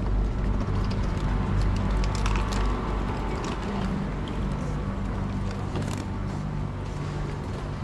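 Interior noise of a moving Airport Rail Link train: a steady low rumble and hum, with scattered light clicks and rattles from the carriage.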